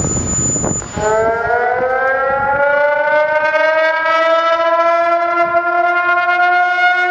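Tsunami warning siren starting up about a second in. Its wail rises in pitch over a couple of seconds, then holds a loud, steady tone.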